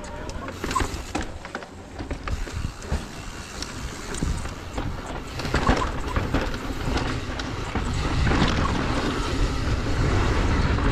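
Mountain bike riding a rocky dirt singletrack: tyres rolling over dirt and rock, the bike rattling with many sharp knocks, and wind rumbling on the microphone that grows louder near the end.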